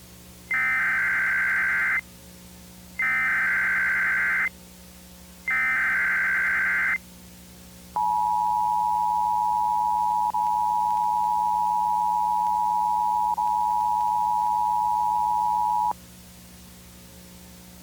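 Emergency Alert System broadcast tones: three short buzzing bursts of the SAME digital header, about a second and a half each, then the two-tone EAS attention signal (853 and 960 Hz), a steady dual tone held for about eight seconds that cuts off suddenly.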